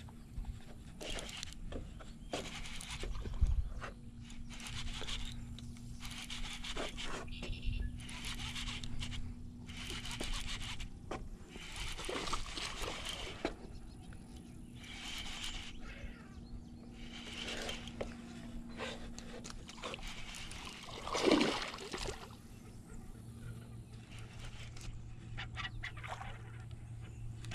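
A baitcasting reel being cranked as a topwater bait is retrieved across the pond. It comes as short, irregular bursts of sound over a faint steady hum, with one louder swish about three-quarters of the way through.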